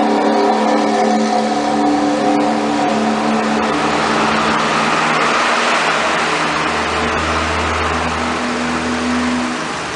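2001 Honda Civic engine running at idle, with steady tones that fade about four seconds in as a hiss rises. A low hum comes in for a few seconds near the end.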